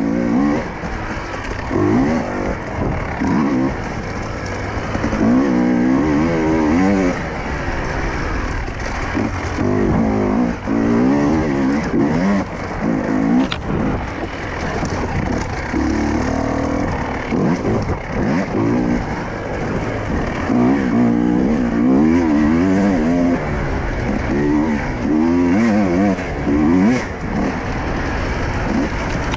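Husqvarna enduro motorcycle engine being ridden hard over rough dirt trail, the revs rising and falling again and again as the throttle is opened and closed, with a steady rush of noise over it.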